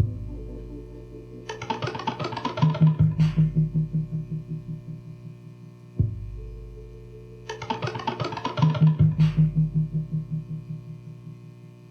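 Live experimental noise music in a six-second loop: each cycle opens with a sudden low hit under a sustained drone, then a loud, rapidly pulsing passage of distorted, effects-processed tones that fades back out.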